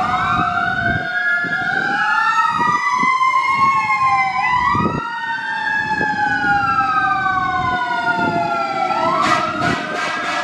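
Fire engine siren wailing, rising and falling slowly in pitch as the engine drives away. A fast pulsing sound joins about nine seconds in.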